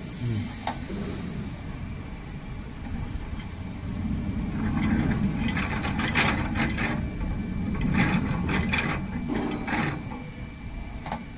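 Wire-feeding and forming machine running, with a steady low mechanical noise. A run of sharp, irregular clicks and clacks comes between about four and ten seconds in.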